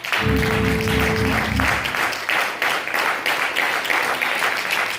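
Congregation applauding and cheering, with a held low instrumental chord sounding under the applause for the first second and a half or so.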